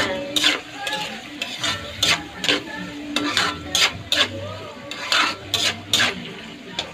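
Spatula stirring beef skin adobo in a metal wok: repeated scrapes against the pan, roughly two a second, over a sizzle of the cooking sauce.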